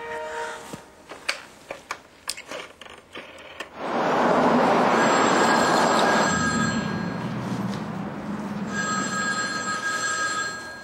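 Scattered clicks and knocks, then a car passes with a loud rush of tyre noise, and a telephone rings twice as the call goes through.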